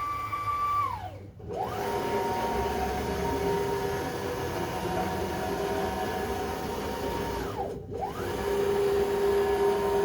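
5 Prime 2642 CNC router's axis motors running through a demo program, with a steady whine. Twice, about a second in and near the end, the whine falls away to a brief stop and climbs straight back up as the machine decelerates and speeds up again.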